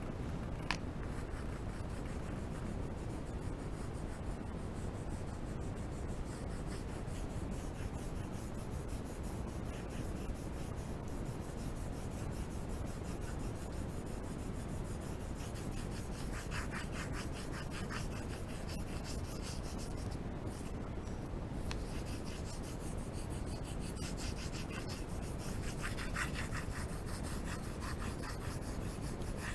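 Blue colored pencil shading on paper in quick back-and-forth strokes, a dry scratchy rubbing, over a steady low background rumble. A single sharp click about a second in.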